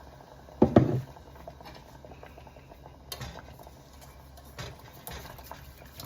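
Homemade enchilada sauce of roux and beef broth being stirred in a pan, with scattered light taps of the utensil against the pan and a soft patter. One louder clunk comes just under a second in.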